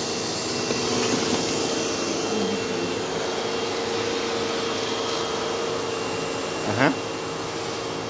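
New upright carpet vacuum cleaner running steadily, a constant whine over rushing air. A short squeak rising quickly in pitch comes about seven seconds in.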